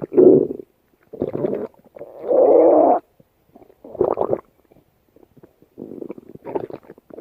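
Human stomach growling: a run of gurgling rumbles with short gaps between them. The longest and loudest lasts about a second, starting about two seconds in, and fainter gurgles follow near the end.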